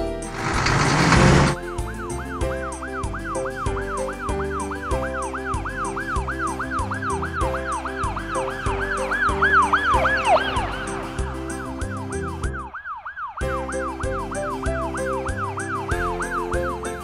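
Cartoon siren sound effect, a fast yelping wail that rises and falls about two and a half times a second, over upbeat background music with a steady beat. It begins just after a short noisy whoosh, and the sound cuts out briefly about 13 seconds in.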